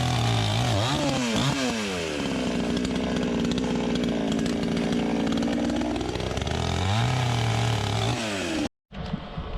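Petrol-engine saw cutting wood: the engine note drops as the saw bites into the wood under load, holds low while cutting, then climbs back as it frees up. The sound cuts off abruptly near the end.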